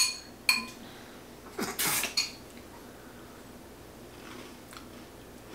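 Metal spoon clinking against a glass bowl as cereal is stirred into milk to soak it: a few sharp, ringing clinks in the first two seconds with a short scrape among them, then quiet.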